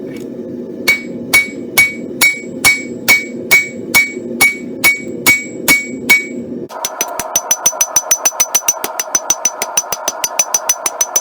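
Hand hammer striking steel on an anvil while a scroll is forged, each blow ringing, about two blows a second over a steady low noise. About two-thirds of the way in the sound changes abruptly to faster, lighter blows, about four a second, with a higher-pitched ring.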